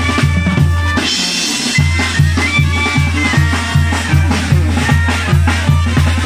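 Tamborazo band playing: the tambora bass drum keeps a steady beat, with trumpets and clarinets holding notes above it. About a second in, the drum drops out under a cymbal crash, then the beat picks up again.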